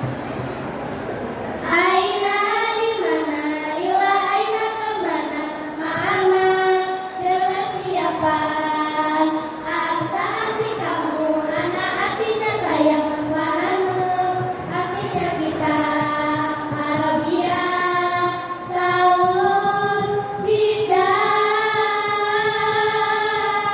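A group of girls singing a melody in unison, without instruments, in long held phrases that start about two seconds in.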